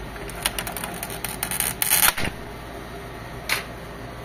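Plastic clicks and snaps from an HP Officejet 7612 printer's plastic back strip being unclipped from the casing: a run of sharp clicks, a louder scraping snap about two seconds in, and one more click later.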